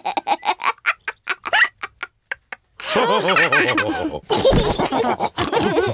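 Cartoon pig characters laughing in rapid bursts and snorting, with a short pause about two seconds in before the laughter starts up again.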